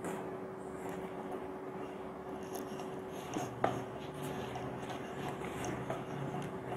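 Hands kneading soft wheat-flour dough in a stainless steel bowl: faint rubbing and squishing, with two light knocks against the bowl a little over three seconds in.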